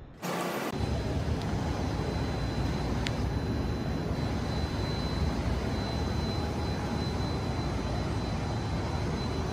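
A steady rushing roar with a faint, thin high-pitched whine over it, starting abruptly about a third of a second in.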